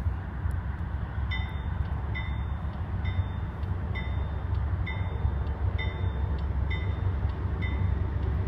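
Railway warning bell starting about a second in and dinging about once a second, signalling the approaching train, over a steady low rumble.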